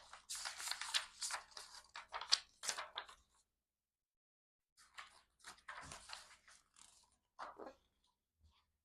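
Rustling and crinkling of a paper lyric book and album contents being handled, in two spells of quick crackly strokes with a pause of about a second and a half between them.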